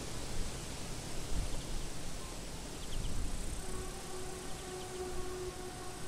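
Open-field ambience: a steady low wind rumble and hiss, with faint insect chirps as short high triple ticks every second and a half or so. A little past halfway a distant steady humming tone with a few overtones comes in and holds.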